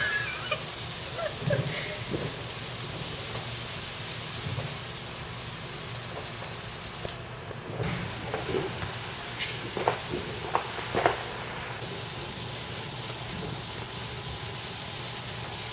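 Handheld sparklers burning with a steady fizzing hiss, with a brief break a little past halfway.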